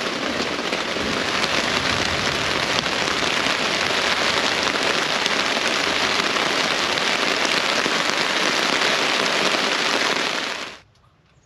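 Heavy rain pouring steadily in a thunderstorm: a loud, even hiss of countless drops. It cuts off abruptly about a second before the end, leaving near quiet.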